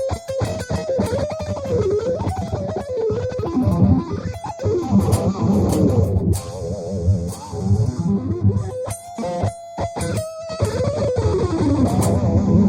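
Electric guitar playing fast shred runs, mixed with held notes that waver and bend in pitch. There are a few short breaks between phrases, about four and a half, six and nine seconds in.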